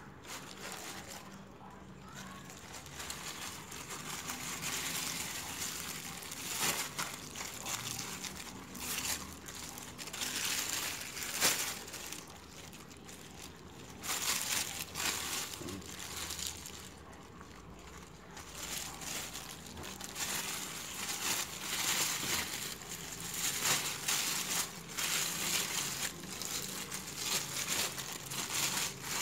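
Thin plastic sheet crinkling and rustling as wet meatball dough is squeezed and shaped inside it by hand, coming in spells with short quieter pauses.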